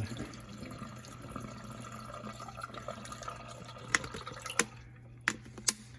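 Water poured through a small funnel into an air conditioner's condensate drain pipe, trickling and draining away to flush out the clogged line; it dies away about four and a half seconds in. A few sharp knocks follow.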